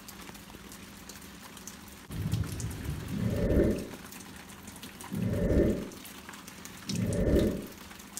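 Rain falling steadily, with three low rumbles of thunder, each a second or two long, starting about two, five and seven seconds in.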